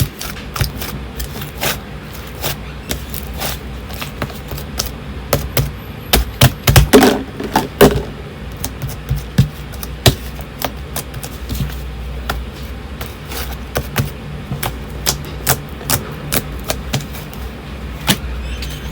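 Fluffy slime being squeezed and stretched by hand: irregular sharp pops and clicks from trapped air, thickest and loudest about six to eight seconds in, over a low steady hum.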